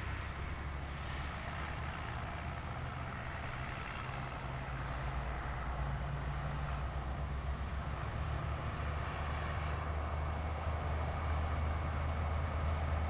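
Steady low rumble of distant road traffic with an even tyre hiss, gradually growing a little louder.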